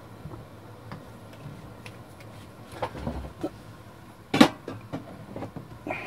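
Small objects being handled on a workbench: a few light clicks and taps, then one sharp knock about four and a half seconds in.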